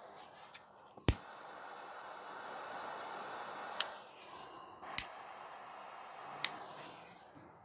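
A lighter clicking four times at uneven intervals, the first click the loudest, over a steady hiss from its gas flame that drops out briefly between the second and third clicks and fades near the end, as it lights the wicks of a homemade oil burner.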